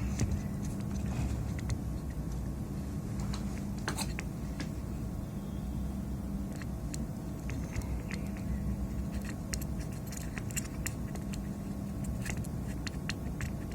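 Small scattered clicks and taps of hand tools on a circuit board while a component is desoldered, more of them near the end, over a steady low hum.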